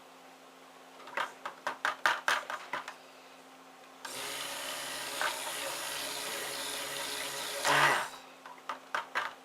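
Stick blender running steadily in a pot of cold process soap batter for about four seconds, mixing oils and lye toward trace, with a louder surge just before it stops. Light knocks and clicks against the pot come before and after.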